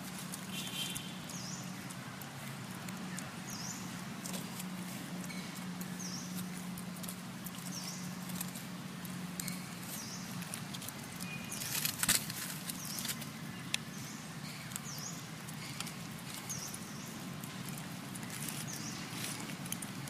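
Dry leaf litter rustling and crackling as macaques shift and crawl over it, loudest in a short burst about twelve seconds in. A short high chirp repeats about every two seconds over a low steady hum.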